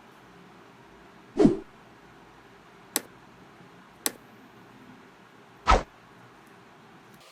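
Workbench handling noises: a heavier knock about a second and a half in, two sharp clicks a second apart, then another knock near the end.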